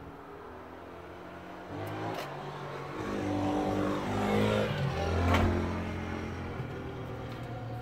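A motor vehicle passing by: its engine note rises and grows louder, peaks about five seconds in, then falls away.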